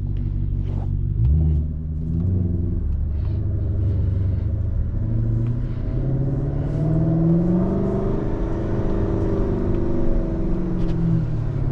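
V8 engine of a 2012 Hyundai Genesis R-Spec 5.0 running on an E85 tune, heard from inside the cabin while driving. It picks up about a second in, revs climb steadily through the middle, hold, then drop away near the end as the car eases off.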